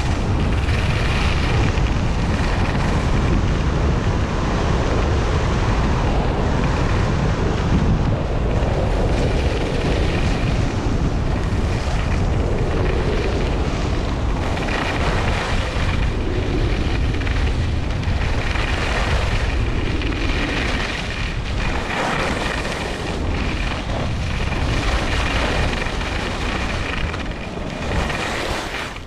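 Wind rumbling and buffeting on a helmet or chest camera's microphone during a fast ski run, mixed with the scrape of ski edges on hard groomed snow swelling through each turn; it eases a little near the end as the skier slows.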